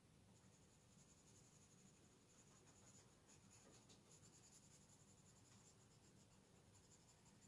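Faint, steady scratching of a gray watercolour pencil colouring on paper in short back-and-forth strokes.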